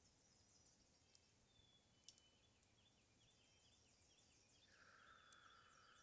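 Near silence: quiet room tone with faint, high, repeated chirping in the background, and a soft hiss rising in the last second.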